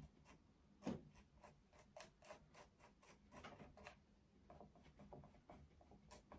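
Palette knife dabbing and scraping thick acrylic paint on a canvas board: faint, irregular taps and scrapes, the loudest about a second in.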